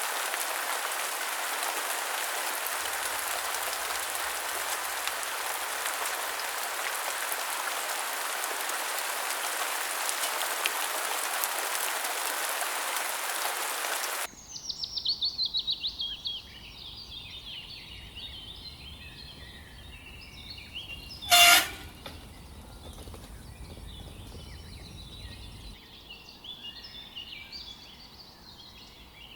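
A steady rushing hiss for the first half, cut off suddenly. Then birds chattering and calling, with a quick falling run of notes, one short, very loud shrill call about two-thirds of the way in, and a faint high steady whine.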